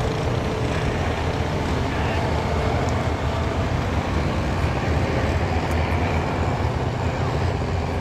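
Farm tractor engine running loud and steady during a tractor pull.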